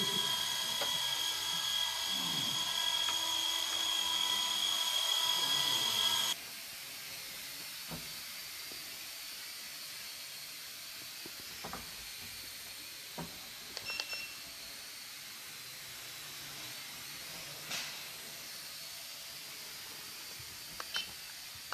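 Small electric RC helicopter hovering, its motor and rotors giving a steady high-pitched whine. About six seconds in, the whine cuts off abruptly and gives way to a much fainter steady hiss with a few light clicks while a small quadcopter flies.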